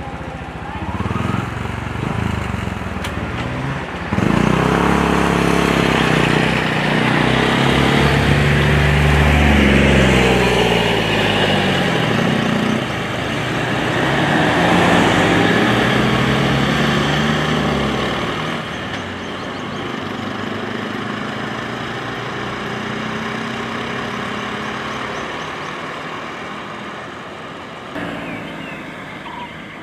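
Road vehicle engines running close by, among them a motorcycle and a three-wheeler auto-rickshaw. Their pitch rises and falls as they speed up and pass. The sound is loudest from about four seconds in until about eighteen seconds, then settles to a quieter, steady engine hum.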